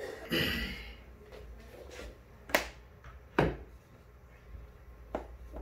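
A short scrape, then two sharp knocks about a second apart and a lighter one near the end, as a thin plywood shelf and a cable are handled against a wall and its mounting brackets.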